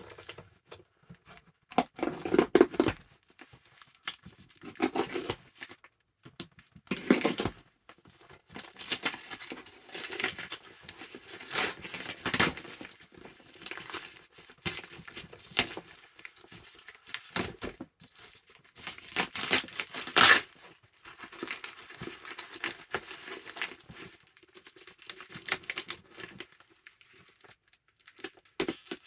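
A mail package being torn open by hand, its packaging ripping and crinkling in irregular bursts, with the loudest rips about two seconds in and about twenty seconds in.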